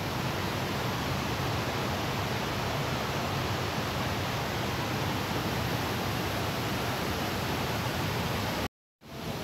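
Steady, even rushing noise with no distinct events, which drops out completely for a moment near the end.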